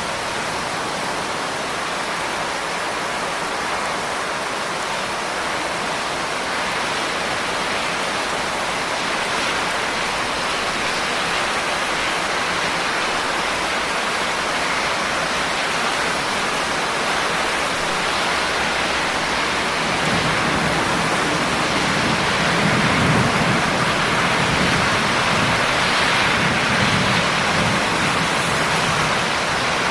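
Steady heavy rain, an even hiss of falling drops. About two-thirds of the way through, a low rolling rumble of thunder comes in.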